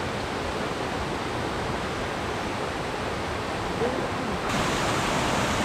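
Steady rush of water from small waterfalls spilling over a rock ledge into a pool. The sound grows a little brighter about four and a half seconds in, and a faint voice is briefly heard shortly before that.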